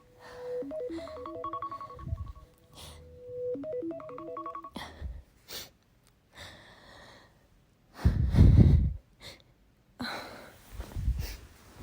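Alarm ringtone playing a short repeating tune of beeping notes, which stops about four and a half seconds in. Several short noisy sounds follow, the loudest a low, heavy burst of noise about eight seconds in.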